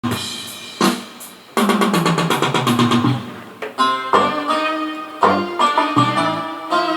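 Electronic arranger keyboard playing an Arabic instrumental melody over a drum beat, with a run of fast repeated notes about two seconds in.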